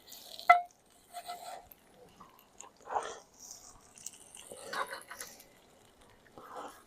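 Cooking-prep handling noises: a sharp click about half a second in, then several short bouts of rustling and scraping.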